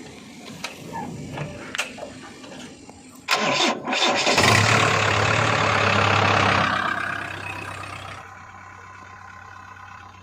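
A diesel engine is cranked and catches about three seconds in, runs loudly for a few seconds, then settles to a quieter steady idle.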